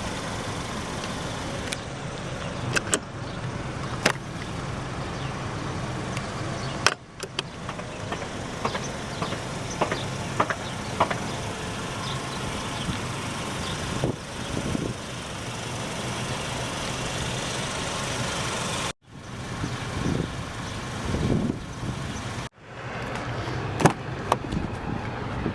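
Steady background noise from a car or its surroundings, with scattered sharp clicks and knocks. Twice near the end the sound drops out abruptly and comes back.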